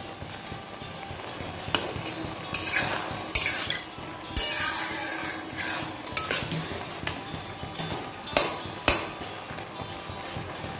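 Flat metal spatula scraping and clinking against a metal kadai while stirring a wet taro, potato and prawn curry: a string of scrapes, one longer scrape about halfway through and the two loudest clinks near the end.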